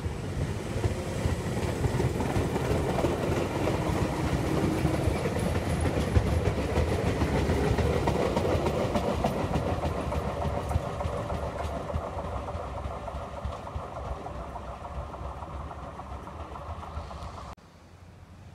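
Circumvesuviana electric train running along the track, its wheels rumbling and clicking on the rails. It grows louder for the first several seconds, then fades as it moves away. Near the end the sound drops suddenly to a much quieter background.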